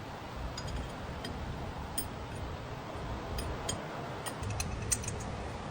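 Scattered light clicks and clinks, irregular and a second or so apart, from metal tools and parts being handled during engine repair, over a low steady rumble of shop background.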